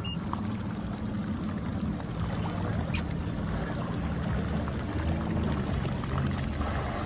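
Yamaha WaveRunner jet ski engine running at low speed as the craft pulls away slowly through shallow water: a steady low hum over a wash of water. A short high beep comes right at the start.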